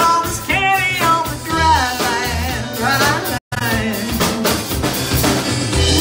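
A live band playing: a voice singing over acoustic guitar and a drum kit. The sound cuts out completely for a split second about halfway through.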